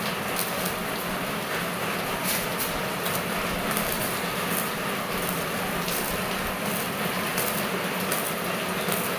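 Stick (shielded metal arc) welding on square steel tubing: the electrode's arc sizzles and crackles steadily, with frequent sharp pops, over a low steady hum.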